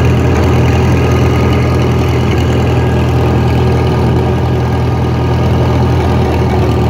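Vintage International Harvester tractor's four-cylinder engine running steadily at an even speed as the tractor is driven along the road.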